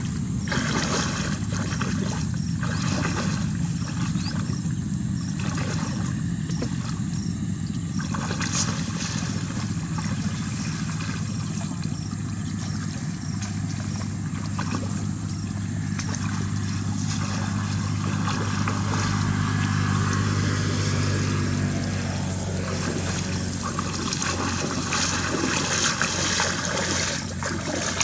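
Water sloshing and splashing unevenly as a woven bamboo fishing basket is pushed and scooped through shallow stream water by someone wading, over a steady low motor drone.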